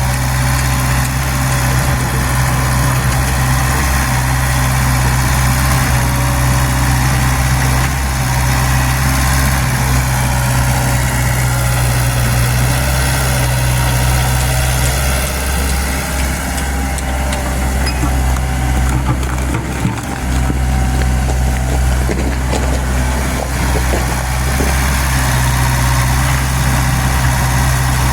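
Excavator's diesel engine running steadily with a deep low hum. The hum wavers briefly a little past the middle.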